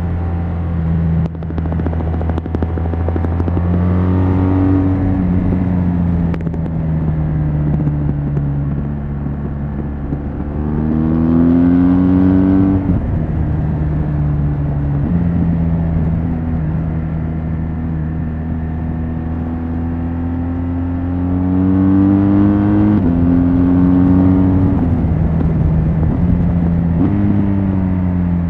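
BMW R1200GS LC's flat-twin boxer engine through its stock exhaust, pulling under way. The pitch climbs steadily, then drops suddenly several times as it shifts up a gear.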